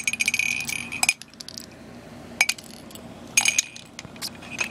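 Small hard plastic Gogo's Crazy Bones figures clicking and clinking against a ceramic mug and a hard floor: scattered sharp clinks, a cluster in the first second and a few more later, some with a brief ring.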